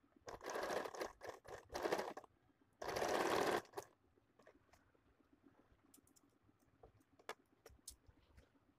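Sewing machine stitching in short runs: two bursts in the first two seconds and a third a little after three seconds in, then it stops. Afterwards only faint clicks and rustles of the fabric being handled.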